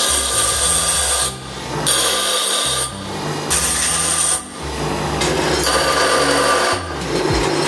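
Bench grinder's stone wheel grinding a small steel bracket, in four bouts of about a second each as the piece is pressed to the wheel and lifted off between passes.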